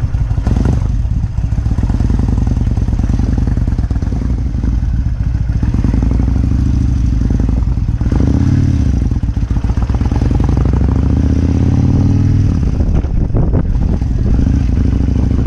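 Kawasaki Vulcan 1600 Classic's V-twin engine running while riding at a cruise, its pitch climbing for a couple of seconds past the middle and then dropping back.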